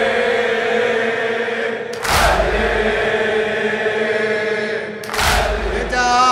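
Congregation of mourners striking their chests in unison in a latmiya: two massed, echoing slaps with a heavy low thud, about three seconds apart, over a steady, held chant of men's voices.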